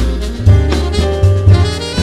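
Jazz combo playing an instrumental passage: saxophone leading over piano, upright bass and horns, with prominent low bass notes.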